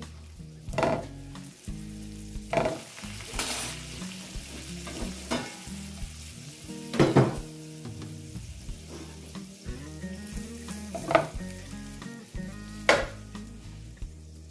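Halved boiled potatoes sizzling as they fry cut side down in melted butter in a skillet, with several sharp knocks of a fork and potatoes against the pan.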